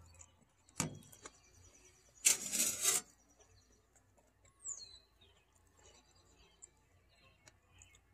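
Tableware handled on a table: a sharp click about a second in as a metal fork is set down on a plate, then a short loud scrape lasting under a second around two to three seconds in. Songbirds chirp faintly, with one falling whistled call near the middle.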